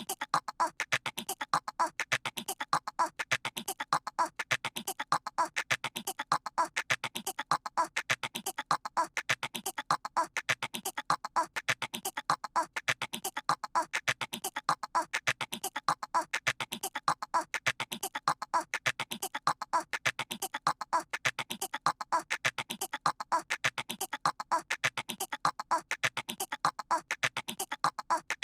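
A cartoon baby's voice making rapid squirrel-like chattering noises, one short stretch repeated over and over in an even loop.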